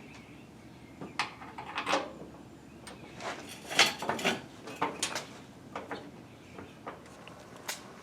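Irregular clinks, knocks and rattles of metal parts and tools being handled, with the loudest knock about four seconds in.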